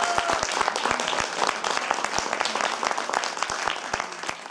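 Audience applauding, a dense run of claps that thins and grows quieter toward the end.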